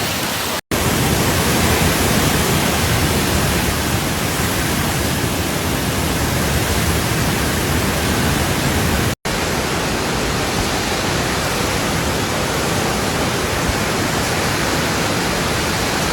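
Cyclone-force wind and heavy rain making a loud, steady rush of noise on the microphone, cut off for an instant twice, about half a second in and about nine seconds in.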